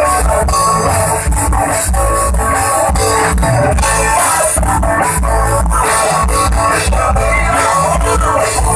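Loud band music in a rock style, with guitar and a drum kit keeping a steady beat.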